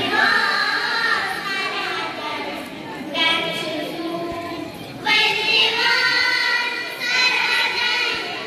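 A group of young girls singing a Kashmiri manqabat, a devotional song, together in unison, in phrases of held, wavering notes with a fresh phrase starting every two seconds or so.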